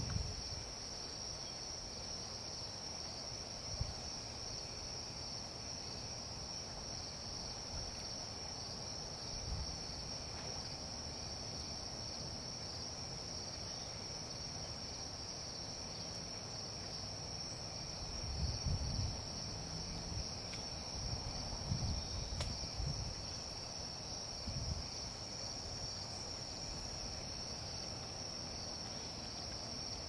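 Evening chorus of crickets: a steady, unbroken high chirring. A few brief low rumbles come in past the middle.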